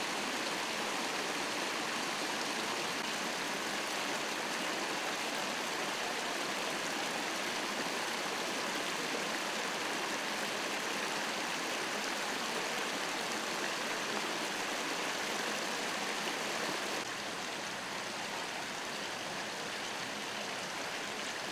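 Water from a broken water main welling up through the street's asphalt and running along the road: a steady rushing, a little quieter from about three-quarters of the way through.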